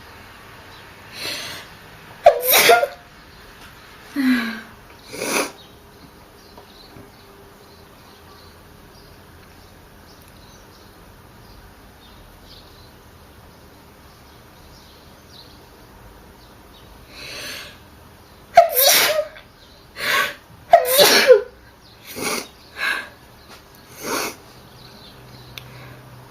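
A person sneezing in two bouts of short, sharp bursts about twelve seconds apart: the first a little after the start, the second, faster run of about six bursts from about two-thirds of the way in. The loudest sneezes come about two seconds in, near the start of the second bout, and just after it.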